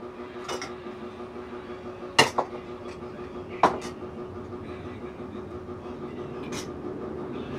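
A spoon clinking and knocking against a plate and bowl several times, the loudest knocks about two and three and a half seconds in, over a steady low hum.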